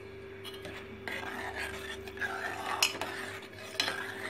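Metal ladle stirring milk and cooked sago in an aluminium pot, scraping and clinking against the pot, with a couple of sharper clinks in the second half.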